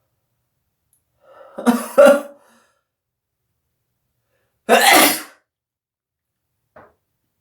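A person sneezing twice: the first, about two seconds in, has a short breathy build-up before the loud sneeze; the second comes about five seconds in.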